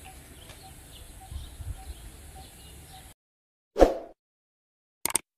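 Outdoor ambience with a bird chirping at an even pace, about twice a second, which cuts off abruptly about three seconds in. A short loud swoosh follows, the loudest sound, and then a quick double click near the end: sound effects of a subscribe-button animation.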